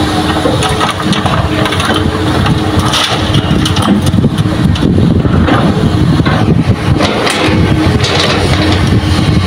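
Hitachi excavator's diesel engine running under load as it dumps a bucket of soil into a steel dump-truck bed and swings back, with the rumble and clatter of earth and stones landing in the bed.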